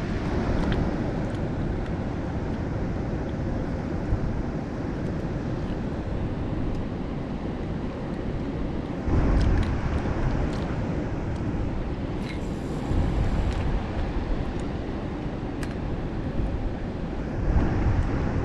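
Wind blowing across the microphone: a steady rushing noise that buffets harder about nine seconds in.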